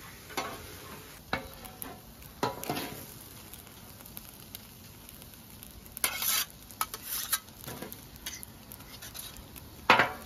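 Two metal spatulas scraping and tapping against a Blackstone flat-top griddle as noodles and vegetables are tossed, in irregular strokes. Under them, a low sizzle of food frying on the hot steel plate.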